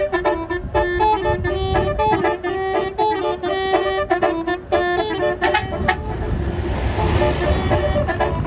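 Bus 'telolet' Basuri multi-tone horn playing a quick tune of short stepping notes. About six seconds in the tune breaks off for a couple of seconds of hissing noise, and the notes start again near the end.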